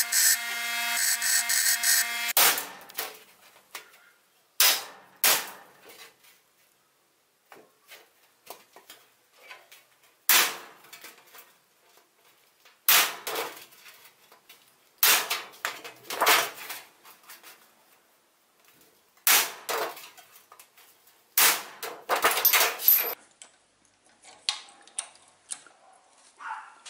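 Bench grinder running with steel being ground against the wheel for about two seconds. Then about a dozen sharp metallic strikes at irregular intervals, some in quick pairs: a hammer hitting a homemade punch made from a car engine valve, driving holes through 1 mm zinc sheet.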